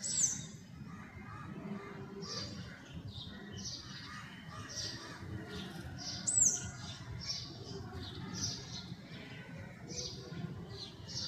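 Sparrows chirping, a steady run of short high chirps about twice a second, with a louder sharp call right at the start and another about six seconds in.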